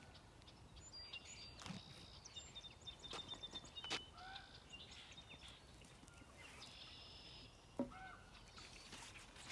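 Faint bird calls: short chirps and a brief rapid trill, with a few light knocks, the sharpest near the end.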